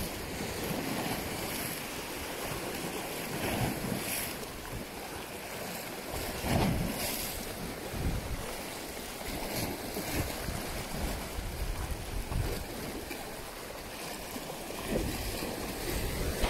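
Small sea waves washing and splashing against shoreline rocks, rising now and then into a louder wash, with wind buffeting the microphone.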